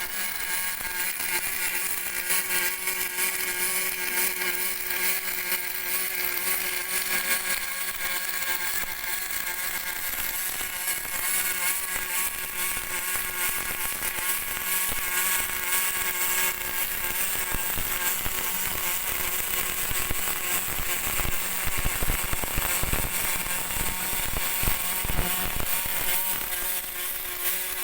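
Welding on a boat deck: the arc's steady hiss and crackle over a steady machine hum, with a few low knocks in the last third.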